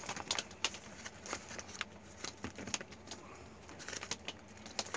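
Plastic resealable bag being handled while bracelets are put back inside: irregular light clicks, ticks and crinkles.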